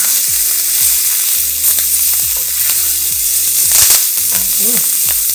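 Green bell pepper strips sizzling in oil in a hot cast-iron skillet, stirred with a wooden spatula, with a steady hiss and scattered sharp pops as the skins blister.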